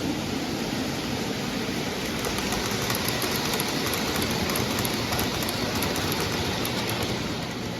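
Model train running on the layout's track and passing close by, its wheels giving a run of quick, even clicks over the rail joints for a few seconds in the middle.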